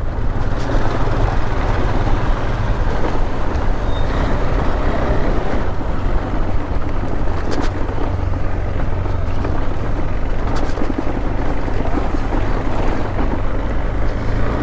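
Motorcycle being ridden: engine and road noise as a loud, steady rumble with no change in pace.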